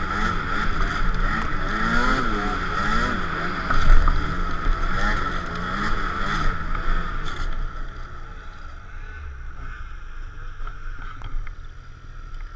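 Ski-Doo Summit snowmobile engine revving up and down again and again over a steady high whine, with a loud thump about four seconds in. A little past halfway the revs fall away and it runs much more quietly.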